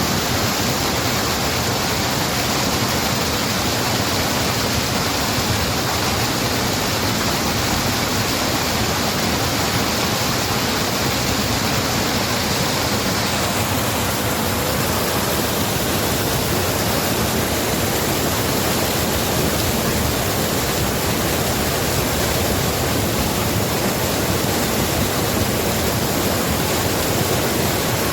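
Waterfall: a loud, steady rush of falling water, its high hiss easing slightly about halfway through.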